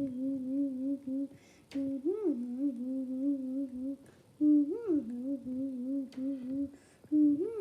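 A voice humming one held note, with a short upward swoop and fall about every two and a half seconds, repeated three times. Light clicks and crinkles of plastic packaging being handled are mixed in.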